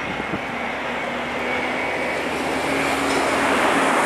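Boeing 787-9 airliner's Rolls-Royce Trent 1000 engines on landing approach: a steady jet rush with a low hum and a high whine held through it, growing louder as the aircraft closes in.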